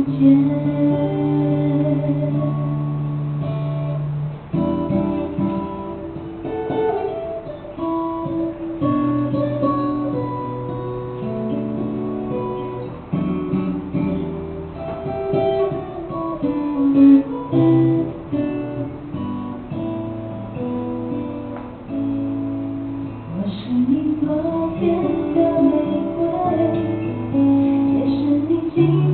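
A woman singing live with long held notes, accompanied by an acoustic guitar that is strummed and picked.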